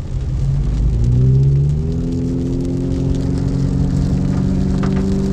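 Car engine rising in pitch as the car accelerates, then holding a steady note as it cruises, over the hiss of tyres on a wet road, heard from inside the cabin.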